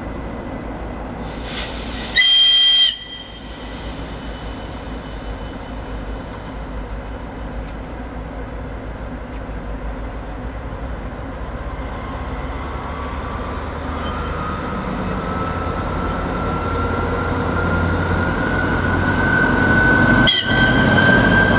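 DR1A diesel multiple unit sounding a short horn blast about two seconds in. Its engine then runs louder as it pulls out, with a whine rising steadily in pitch as it gathers speed. A second, shorter horn blast comes near the end as it draws close.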